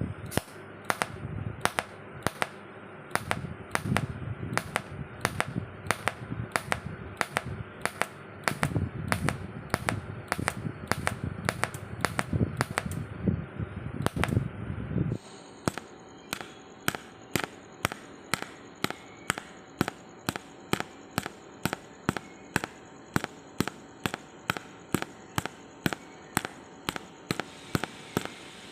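Sharp ticks repeating evenly about twice a second, over a steady background noise with a low rumble that drops away about halfway through.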